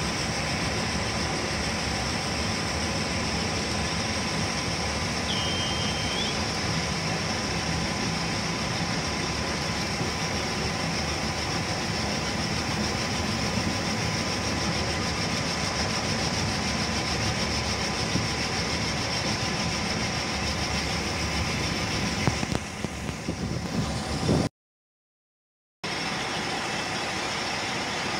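Engine of a yellow work locomotive running steadily while it rolls along the track hauling flat wagons. The sound cuts out completely for about a second near the end, then the engine carries on.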